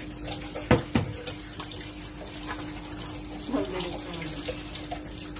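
Steady hiss with a low steady hum under it, and two sharp taps about three-quarters of a second and a second in.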